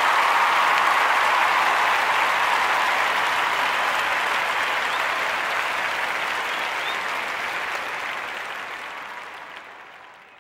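Audience applause: dense, steady clapping from a crowd that fades out over the last few seconds.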